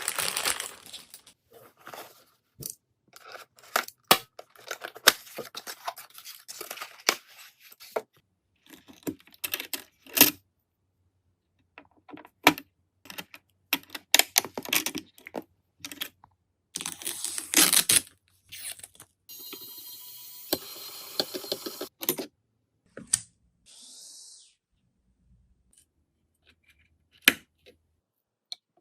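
Close handling noise from computer parts and their packaging: a string of irregular clicks and knocks mixed with bursts of rustling and tearing, and a steadier hiss lasting a couple of seconds past the middle.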